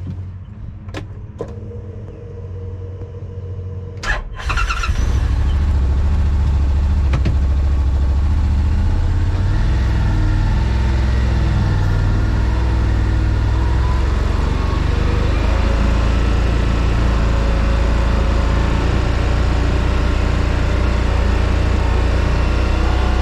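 Yamaha RMAX2 1000 side-by-side's parallel-twin engine, running quietly with a few clicks at first, then much louder and steady from about four seconds in as the machine gets under way.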